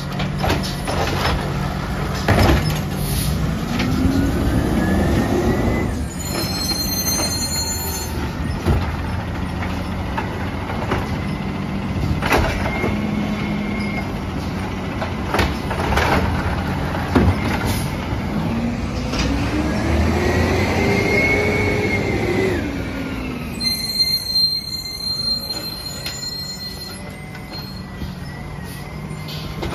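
Peterbilt 320 automated side-loader garbage truck at work: its engine runs steadily and revs up and back down twice, with scattered sharp clanks from the lifting arm and carts and short hisses of air.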